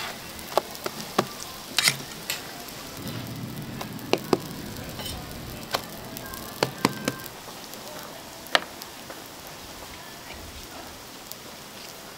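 Food frying in oil on a hot griddle: a steady sizzle, with scattered sharp clicks and taps throughout.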